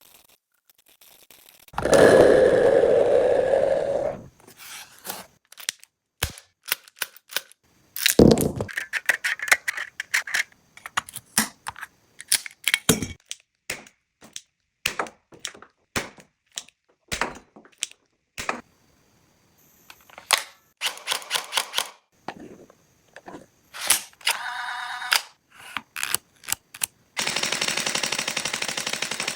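Toy guns being handled and fired: a long series of sharp plastic and metal clicks and clacks, with a loud burst of rapid firing about two seconds in and another near the end.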